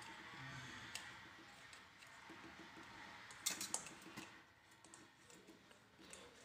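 Faint clicking and light rattling of small metal chandelier parts being handled and fitted by hand, with a quick cluster of sharper clicks about three and a half seconds in.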